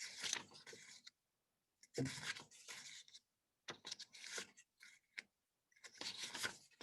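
Paper word cards sliding and rubbing against each other and the table, four faint scrapes about two seconds apart.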